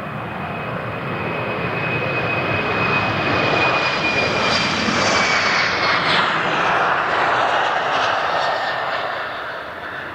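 Jet airliner's engines roaring as it passes on takeoff. The sound swells to a peak midway, then fades, and a high whine drops in pitch as the aircraft goes by.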